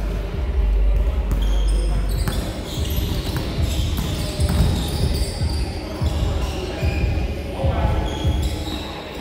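A basketball dribbled on a hardwood gym floor: a series of low bounces, about two a second, with players' voices around it.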